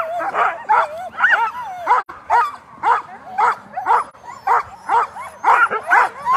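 A team of Alaskan huskies barking and yelping together, several dogs at once, at about two cries a second, the excited clamour of sled dogs straining to start a race.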